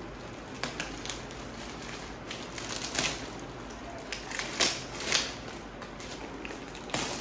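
Scissors snipping and the plastic wrapping of a rolled foam mattress crinkling as it is cut open and pulled apart, in scattered sharp clicks and crackles.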